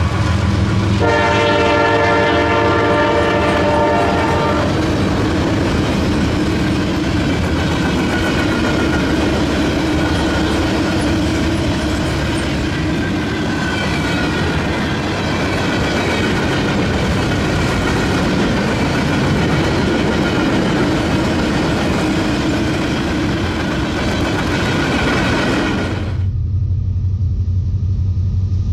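Diesel freight train passing: a locomotive air horn sounds once, about a second in, for roughly three and a half seconds, then loaded gondola cars roll by with steady wheel-on-rail noise and clickety-clack. Near the end the sound switches to the deep, steady rumble of diesel locomotives approaching.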